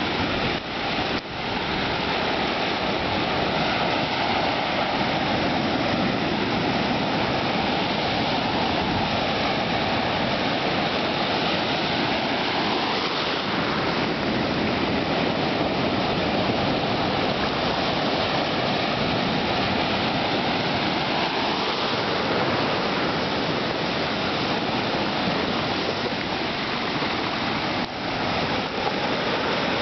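Shallow surf washing and foaming over a sand and pebble shore: a continuous rush of churning water.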